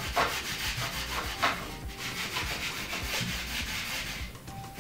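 A hand baren rubbed over the back of a sheet of paper laid on an inked gel printing plate, a run of repeated rubbing strokes as the monotype print is pulled.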